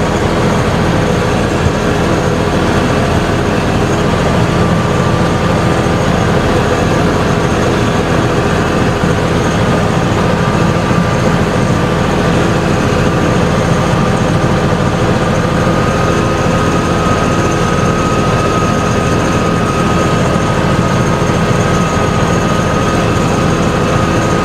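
Farm tractor engine running steadily at a constant speed while the tractor is driven slowly, with a thin whine that rises slightly partway through.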